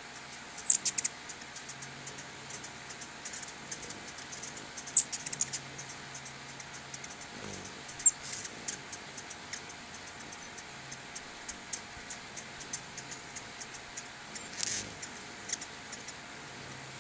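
Ruby-throated hummingbirds giving short, high-pitched chip notes in quick scattered runs, louder clusters about a second in and again near the end.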